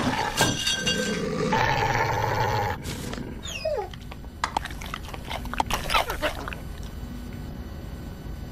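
Wolf growling for nearly three seconds, then a short falling whine and a few sharp clicks.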